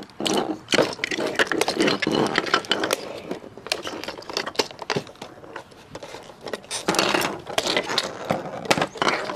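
Plastic Mega Bloks building pieces clicking and clattering as they are handled, pressed together and set down on a table, in a string of short, sharp clicks.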